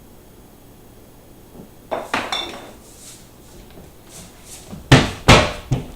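Kitchenware clinking and knocking on a counter: a short clatter with a brief ring about two seconds in, then two loud knocks near the end.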